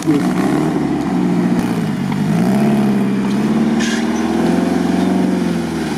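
Lifted off-road 4x4's engine pulling under load with the differential locks engaged, its pitch rising about two seconds in and holding there as it drives into swamp water.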